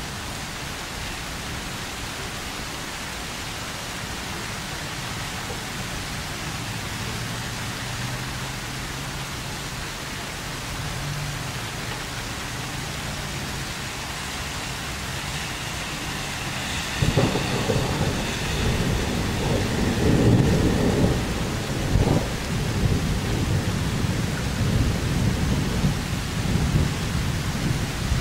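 Thunderstorm: steady rain hiss, then about two-thirds of the way in a sudden loud thunderclap that breaks into long rolling thunder, with sharper cracks a few seconds later, rumbling on to the end.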